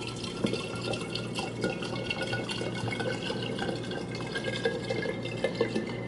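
Vodka pouring steadily from its bottle into a glass decanter, the liquid splashing as the decanter fills.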